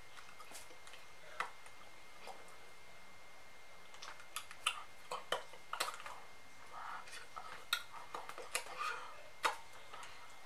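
A woman whispering quickly, with sharp mouth clicks and lip smacks between the words.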